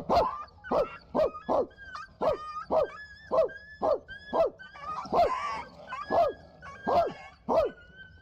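Dogs barking in a fight: a rapid run of sharp barks, about two a second, with higher-pitched yelps and whines between them.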